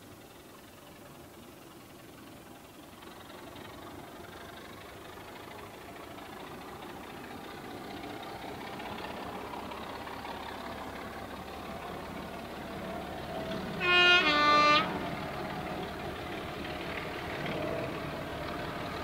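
A diesel locomotive hauling coaches approaches, its engine growing steadily louder. About three-quarters of the way through it sounds a short two-tone horn, a high note then a low note.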